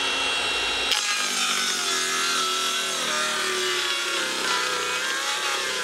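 Makita circular saw cutting through plywood. Its motor whine drops in pitch as the blade bites into the wood about a second in, then wavers under the load of the cut.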